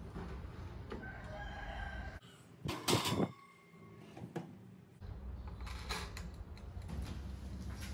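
A rooster crows in the background, starting about a second in, with the loudest moment near three seconds. Under it, a countertop toaster oven is handled: its glass door is shut and its timer knob is turned, giving a few light clicks.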